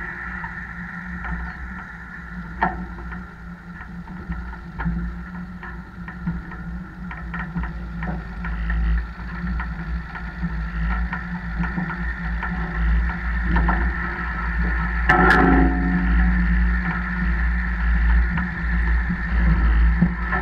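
Tractor-towed Kverneland boom sprayer at work applying liquid fertiliser, heard close from the boom: a steady machine hum and low rumble, with scattered rattling knocks as the boom rides over the field. A louder clank about fifteen seconds in.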